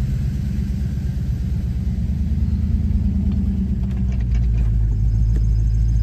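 A 1995 Ford Mustang GT's 5.0 L (302) V8 idling, heard from inside the cabin, with an uneven beat. It gets a little louder about four seconds in. The engine is misfiring at idle, with some backfiring, and cleaning the distributor cap has not cured it.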